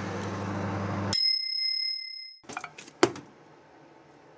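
Microwave oven running with a steady low hum that stops about a second in, as the oven gives one long high-pitched beep to signal the end of heating. A few clicks and clunks follow as the door is opened and the paper snack cup is taken out.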